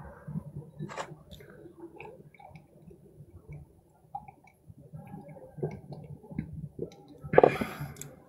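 A man drinking from a plastic cup: small sips, swallows and mouth and cup clicks, with a louder burst about seven seconds in.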